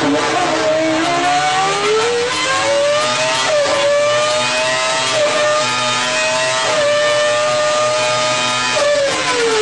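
Renault Formula 1 V10 engine at high revs, pulling through the gears: the pitch climbs, with three brief dips at the upshifts, then falls away near the end as it lifts off and shifts down.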